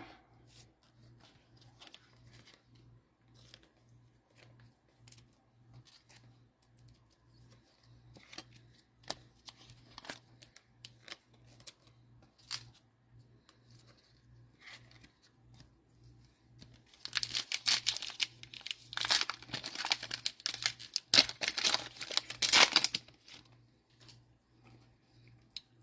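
Light clicks and taps of cards and plastic card holders being handled, then, about 17 seconds in, the plastic wrapper of a Panini Mosaic football card pack is torn open and crinkled for about six seconds.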